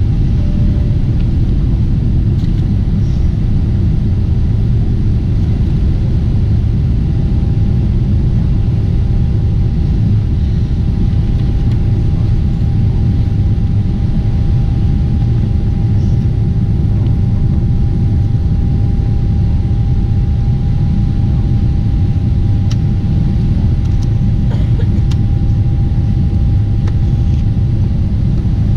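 Cabin noise of a Boeing 747-8 airliner in flight: a steady low rumble with a faint steady whine running through it.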